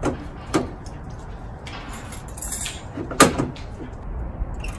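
Sharp clicks and knocks from a 7-inch LED halo headlight being handled and seated into the Miata's headlight housing, with a short scraping rustle in the middle and the loudest knock about three seconds in, over a steady low background rumble.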